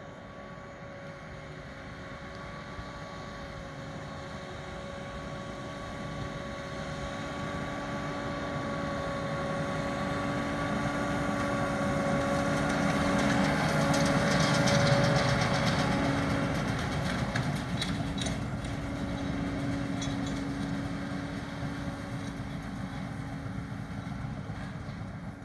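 New Holland T7 245 tractor's six-cylinder diesel running steadily under load as it pulls a round baler. It grows louder as it comes close, peaks about halfway through, then fades as it moves away.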